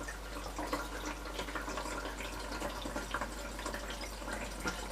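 Water being poured from a jug into the top-fill water tank of a countertop dishwasher, trickling and splashing irregularly.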